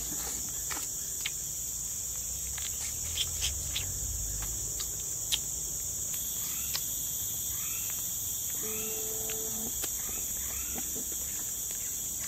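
A steady, high-pitched chorus of insects, with scattered small clicks and smacks of eating grilled fish by hand, mostly in the first half.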